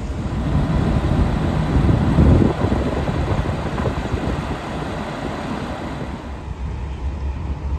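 Gusty wind buffeting the microphone: an irregular rumbling rush that swells about two seconds in and eases off over the last few seconds.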